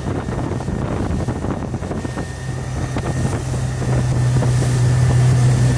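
OXE 150 hp diesel outboard driving a rigid inflatable boat under way, with wind buffeting the microphone. About two seconds in, a steady engine hum comes up and grows louder.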